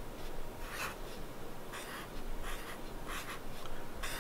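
Black felt-tip marker drawing on paper: a series of short, scratchy strokes as the teeth of a cartoon mouth are drawn in.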